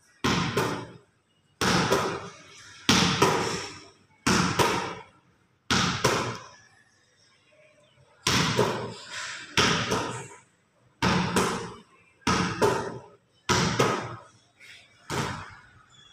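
A netball repeatedly striking hard concrete and being caught, a sharp thump about every second and a half, some hits doubled, each with a short echo off the bare concrete walls.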